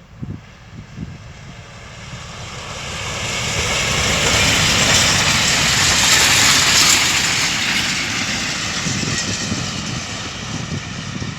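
A train passing by: the rumble and rail noise build over several seconds, are loudest around the middle, then slowly fade as it moves away.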